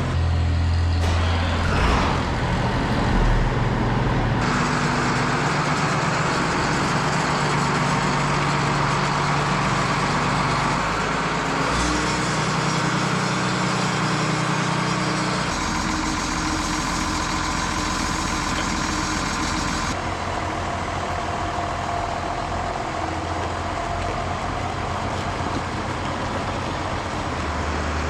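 John Deere 7810 tractor's six-cylinder diesel engine running while the tractor is moved, its engine note shifting several times.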